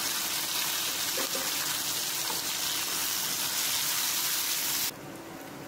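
Shallots, dry red chillies and curry leaves sizzling in hot coconut oil in a kadai: the steady high hiss of a tempering being fried. The hiss drops off abruptly near the end.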